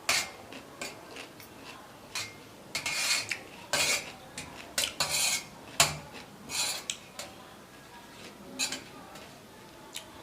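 Cutlery clinking and scraping against a plate of fried rice and noodles as food is mixed and scooped up, in irregular clinks and scrapes that are busiest for the first seven seconds and thin out near the end.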